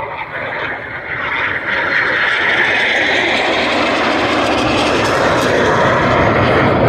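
Aircraft engines at close range as a plane flies by, the noise building about a second in and then holding loud and steady.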